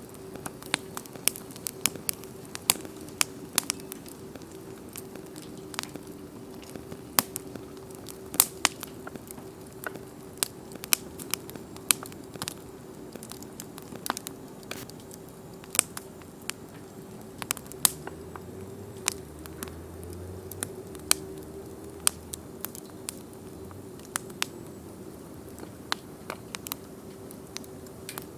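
Wood bonfire crackling, with sharp irregular pops one or two a second over a faint steady hum.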